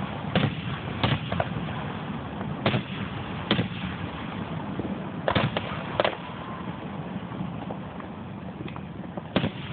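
Aerial fireworks shells bursting: about ten sharp bangs at irregular intervals, some in quick pairs, over a steady hiss.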